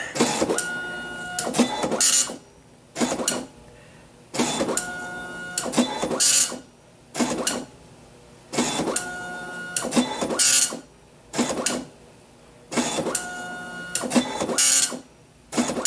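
Apple ImageWriter II dot-matrix printer printing a colour graphic: the nine-pin print head buzzes across the page in passes of about two and a half seconds, with short pauses and a sharp clack between passes as the paper advances. It is slow going.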